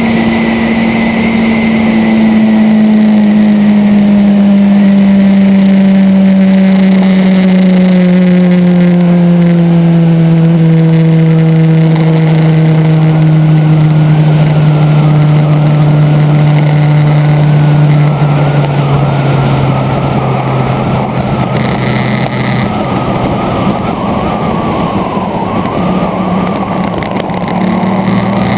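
Motorcycle engine running while riding, heard from an onboard camera with wind and road noise. The engine note falls slowly for most of the stretch, then settles lower near the end.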